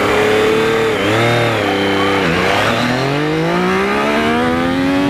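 Yamaha FZ-09's 847 cc inline three-cylinder engine under hard acceleration in first gear: the revs hold high, dip twice in the first couple of seconds, then climb in one long steady rise as the bike pulls away from a standstill.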